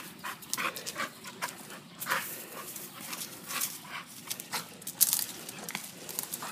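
A dog panting and whimpering in short, irregular bursts as it leaps up at a rope swing hanging from a tree, with sharp rustles and clicks between.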